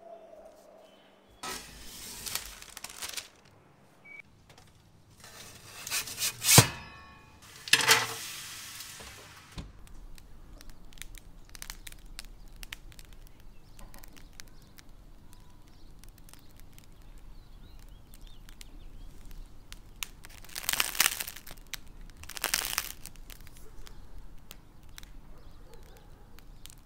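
Freshly baked sourdough bread crackling as its crust cools: a dense run of fine clicks and pops, with louder bursts of crackling about 21 and 22 seconds in. Before that, the first ten seconds hold several louder rustling and scraping noises.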